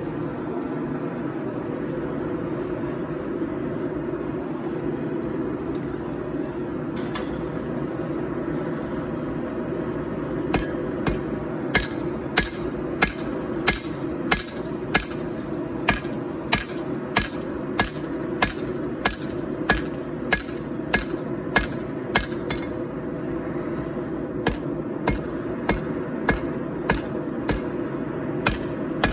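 Hand hammer striking hot 4140 steel on an anvil, forging a knife blade: sharp, evenly paced blows, about one and a half a second, starting about a third of the way in, with a short pause before they resume. Underneath, the forge runs with a steady rushing noise.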